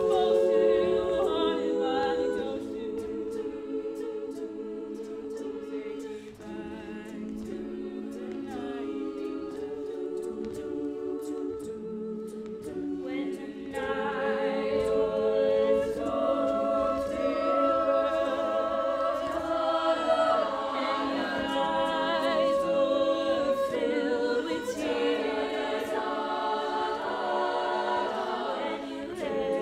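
Women's a cappella group singing in close harmony, with two soloists over the backing voices and sharp clicks keeping the beat. The arrangement is soft for a while, then swells fuller and louder about halfway through.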